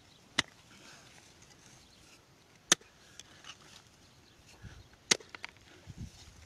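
A long-handled digging tool striking hard, stony ground in three sharp blows about two and a half seconds apart, with a few lighter knocks and soft thuds of loose dirt after the third.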